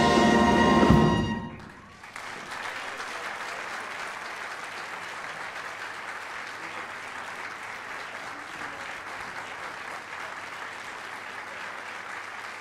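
A wind band holds the final chord of a swing medley and cuts it off on a last accent about a second in. Then the audience applauds steadily.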